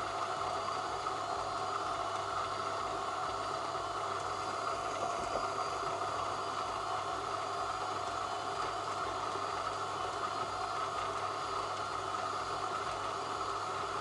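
Electric espresso burr grinder grinding a single dose of about 18 g of coffee beans into a dosing cup: a steady motor whir with the grinding of the burrs.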